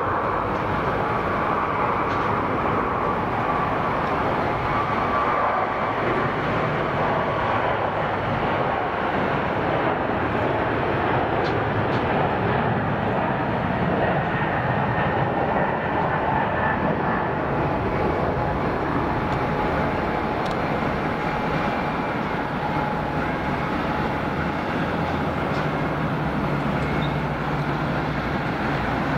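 Jet engines of a twin-engine Boeing 777-300 airliner running at takeoff power: a steady rushing noise with a faint whine.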